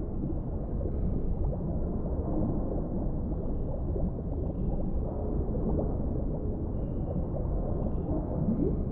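Underwater ambience of the deep sea: a steady low rumble of water with small bubbling gurgles rising through it, a little cluster of them near the end.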